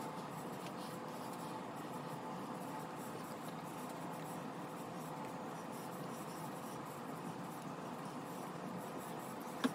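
Soft, steady rubbing and scraping of a silicone spatula against a mixing bowl as cake batter is scraped out into a Bundt pan, over a faint steady hum. A single small click near the end.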